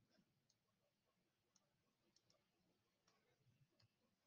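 Near silence, with a handful of very faint clicks from a computer mouse.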